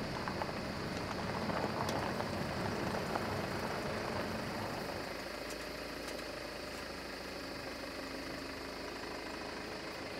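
A car engine running steadily at low revs, heard from a distance.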